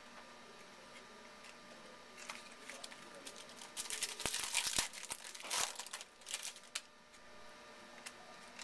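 A 2011 Panini Certified Football card pack's wrapper is torn open and crinkled in a few seconds of rustling bursts, loudest around the middle, followed by a few light clicks as the cards are handled.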